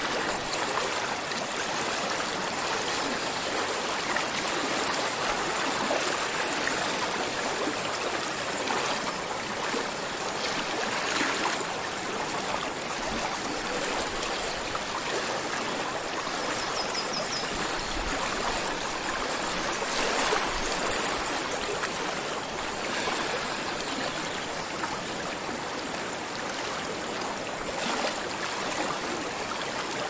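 Stream water running steadily: an even, unbroken rush of flowing water.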